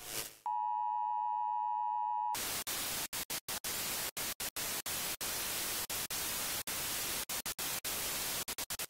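Television test-pattern sound effect: a steady high beep for about two seconds, then loud TV static hiss that keeps cutting out for split seconds, like a glitching analogue signal.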